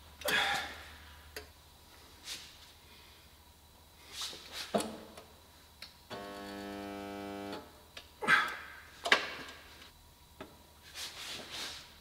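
One-sided spot welding machine firing on a steel car body panel: a steady electric buzz for about a second and a half a little past the middle, as the weld current flows. Sharp knocks and clunks come before and after it, the loudest two shortly after the buzz, as the electrode gun is set and pressed against the panel.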